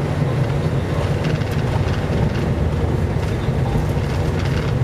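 Steady low rumble inside a Gulfstream G550 cockpit from its Rolls-Royce BR710 turbofan engines running, with faint light ticks and rattles over it.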